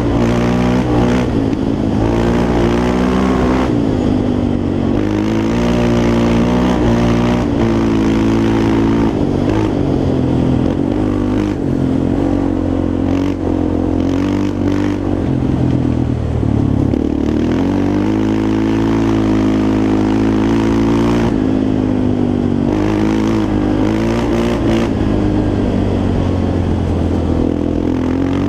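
Yamaha Raptor 350 quad's single-cylinder four-stroke engine running under load, its revs rising and falling continuously as it is ridden.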